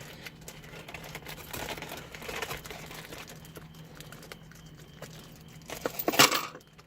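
Crinkling and small clicks as a small part is handled and taken out of its packaging, with a louder rustle about six seconds in and a steady low hum underneath.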